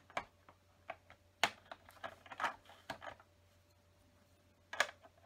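Plastic LEGO bricks clicking and rattling as small pieces are handled and pressed onto a model, in scattered sharp clicks and rustles, the sharpest about a second and a half in and near the end.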